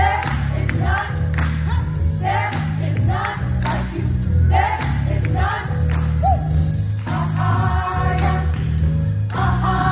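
Women's gospel choir singing short phrases in unison, then holding long notes together from about seven seconds in. A tambourine is struck along with them, and steady low notes sound underneath.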